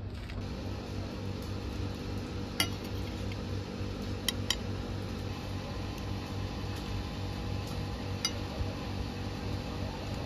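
A spoon clinking against a plate while plov is being eaten: one sharp clink about two and a half seconds in, two close together around four and a half seconds, and one more near eight seconds, over a steady low background hum.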